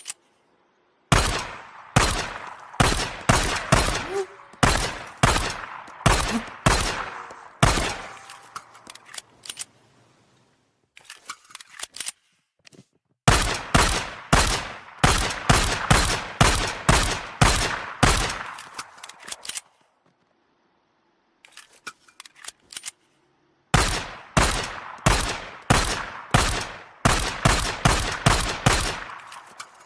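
9mm pistol firing in three long strings of rapid shots, about two a second. Between the strings come short runs of fainter clicks.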